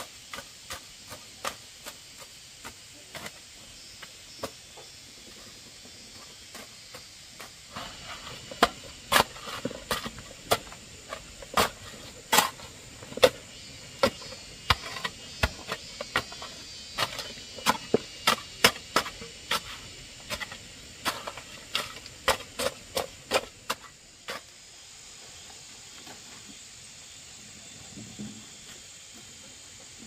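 Repeated sharp knocks of a tool striking wood. They are sparse and faint at first, then come in irregular runs of about two a second and grow louder from about eight seconds in, stopping at about twenty-four seconds.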